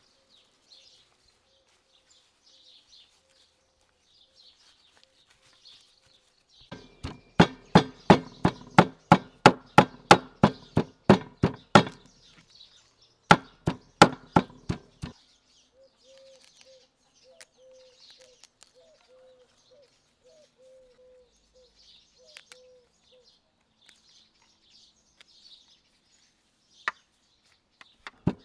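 Raw meat being chopped into mince with a small hatchet on a wooden chopping board: two runs of quick, sharp strikes, about three a second, a few seconds each, around the middle. Birds chirp faintly throughout.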